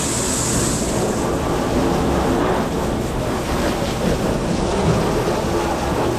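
Steady rushing of water spray and machine rumble from a commercial dishwashing station in operation.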